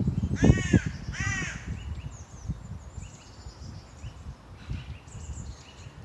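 A crow gives two harsh caws in quick succession about half a second in, and small songbirds chirp faintly in the trees for the rest of the time.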